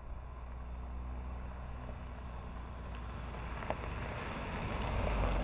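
Jeep Cherokee Trailhawk driving up a gravel dirt road toward the listener: engine running under the crunch of tyres on loose gravel, growing louder as it approaches, with a sharp click or two of stones near the middle.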